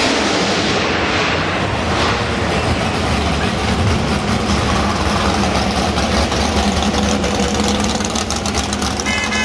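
Muscle car engines running at low revs as the cars roll by, a steady deep rumble.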